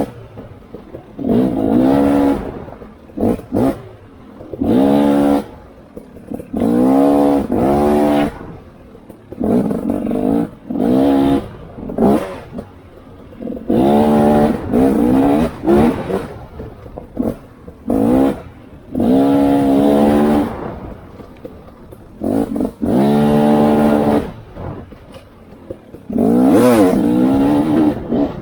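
Off-road vehicle engine revving in repeated short bursts of throttle on a twisty trail, rising in pitch with each burst and dropping off between, about a dozen times.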